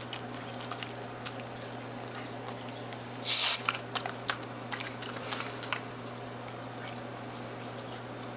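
Basenji licking and smacking at whipped cream, a run of small wet clicks. A short spray from the aerosol whipped-cream can hisses about three seconds in.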